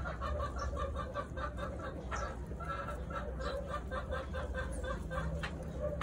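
A chicken clucking in a rapid run of short clucks, about four to five a second, over a steady low hum.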